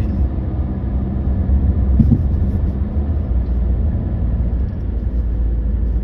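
Road noise inside a moving car: a steady low rumble of engine and tyres, with a short thump about two seconds in.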